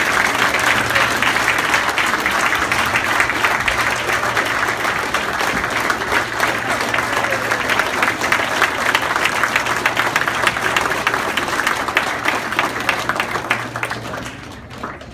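A room full of people applauding steadily; the clapping dies away near the end.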